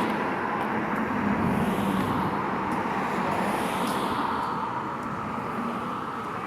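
Road traffic: a steady rushing hum of a passing vehicle that fades over the last couple of seconds.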